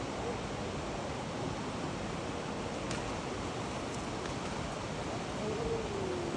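Steady rushing noise of wind and moving water, with a faint short gliding tone near the end.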